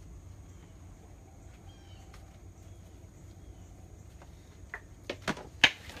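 Quiet outdoor background with a few faint bird chirps about two seconds in, then several sharp knocks or clatters near the end, the loudest about five and a half seconds in.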